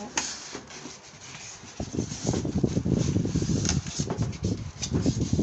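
Rustling and knocking of packaging being handled during the unboxing of a welding machine, dense and irregular from about two seconds in, with a sharp click at the start.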